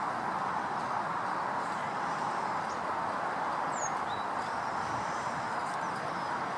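A steady outdoor noise hiss with a few faint, brief, high-pitched bird chirps, one a short sliding call about halfway through.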